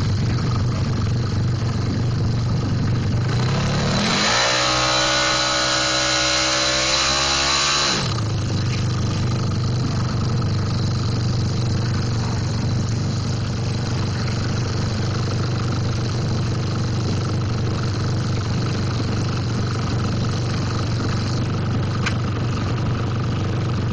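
Drag-race motorcycle engine idling, then revved up hard about four seconds in, held high for about four seconds, and dropped back to a steady idle.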